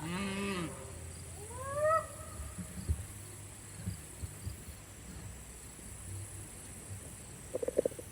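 Cattle calling: a moo tailing off right at the start, then a shorter, higher call that rises in pitch about two seconds in.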